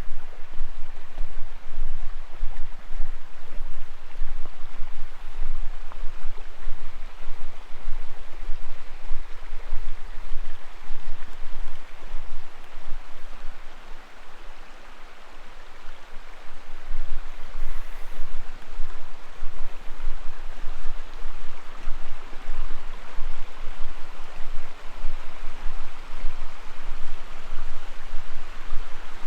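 Creek water rushing steadily over rocks, with a heavy, uneven low rumble on the microphone that drops away for a couple of seconds about halfway through.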